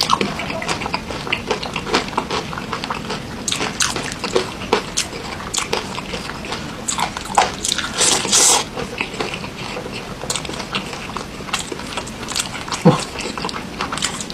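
Close-miked biting and chewing of crispy fried chicken in gulai curry sauce: a run of short, sharp crunches and mouth clicks, with a louder crunchy bite about eight seconds in.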